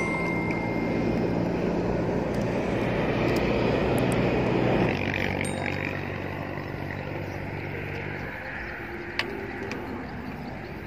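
A motor engine droning steadily, loudest in the first five seconds, shifting in pitch about five seconds in and fading away by about eight seconds. A single sharp click near the end.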